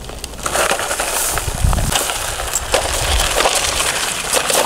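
Irregular clicks and knocks of rocks rattling against the plastic tipping bed of a Bruder toy dump truck, over a steady hiss.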